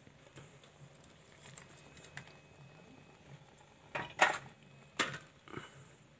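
Wood fire in a tin-can stove crackling faintly with scattered small ticks and pops. About four seconds in come a few sharper, louder knocks and clicks, the loudest near the start of that cluster.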